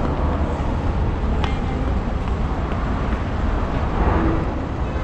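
Busy city street ambience: a steady low rumble of traffic and general urban noise, with a few faint brief clicks.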